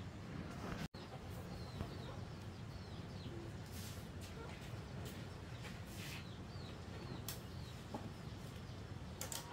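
Chickens clucking, with many short, falling high calls scattered throughout over a steady low hum. The sound cuts out for an instant about a second in.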